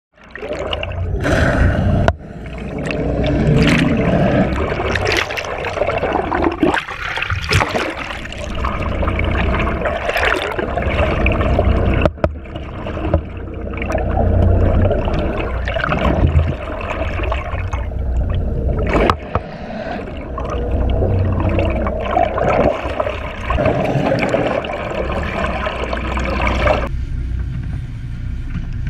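Seawater rushing, splashing and gurgling around a camera held in the water beside a moving boat, over a steady low rumble, with frequent sharp splashes.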